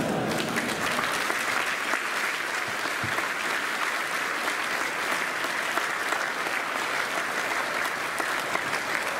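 Audience of school students applauding steadily, the clapping dense and even.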